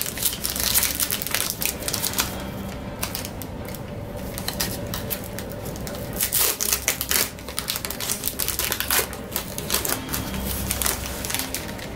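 Foil Pokémon booster pack wrapper crinkling and crackling in quick, irregular clicks as fingers work at its sealed top and peel it open.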